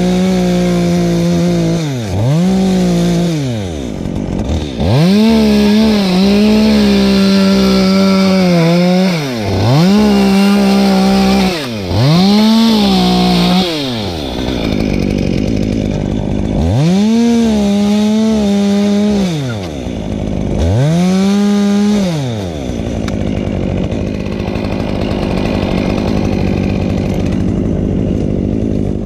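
Two-stroke Stihl top-handle chainsaw revved to full throttle about seven times while cutting palm fronds, dropping back to idle between cuts. It settles to a steady idle for the last few seconds.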